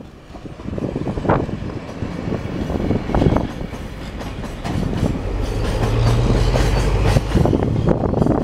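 Freight train of container wagons rolling past close by behind a diesel locomotive, its wheels clicking repeatedly over rail joints under a steady rumble.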